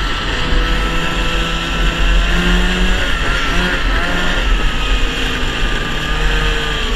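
1971 Ski-Doo TNT 640 snowmobile's two-stroke engine running steadily under way, its pitch shifting a little about three to four seconds in.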